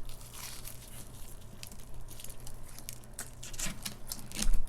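Close-miked eating sounds: scattered small crackles and clicks of crunchy food being chewed and handled, with a louder knock shortly before the end.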